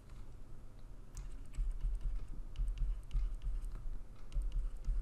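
Pen stylus tapping and clicking on a tablet screen while handwriting figures: irregular light clicks, with soft low bumps of the hand on the surface.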